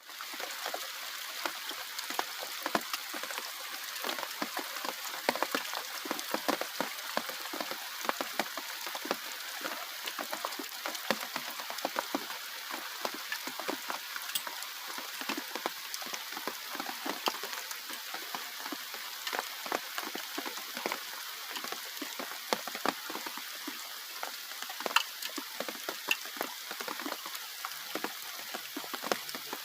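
Rain falling steadily, a constant hiss dotted with many sharp, irregular drop hits.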